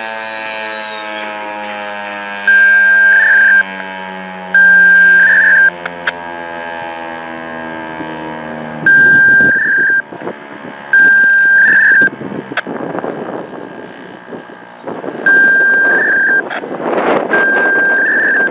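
ASC T-135 warning siren winding down at the end of a full-alert test, its tone falling slowly in pitch and fading out over about ten seconds. A loud, steady, high electronic beep goes on and off about every two seconds over it, and wind noise rises near the end.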